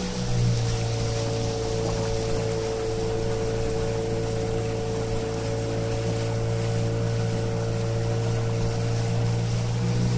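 Outboard motor of a motorboat running at a steady speed, a continuous hum whose pitch dips slightly about half a second in and rises again near the end.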